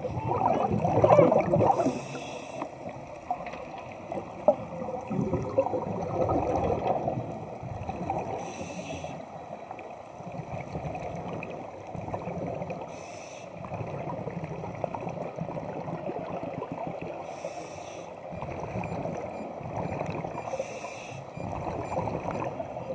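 Scuba diver breathing through a regulator underwater: a short hiss comes five times, some four to six seconds apart, with the bubbling rumble of exhaled air between them.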